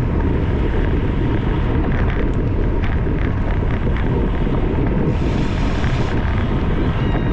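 Wind buffeting the microphone of a camera moving with a bicycle race: a loud, steady low rumble, with a few faint clicks and a brief hiss about five seconds in.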